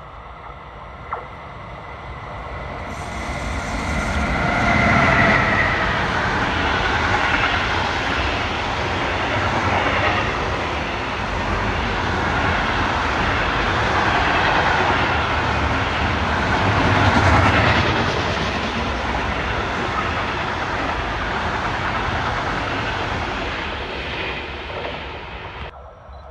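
Freight train passing close by on a through track. The noise builds as the locomotive approaches and goes by with a few falling tones, then a long string of flat wagons loaded with logs rolls past with steady, loud wheel-on-rail noise. It cuts off abruptly near the end.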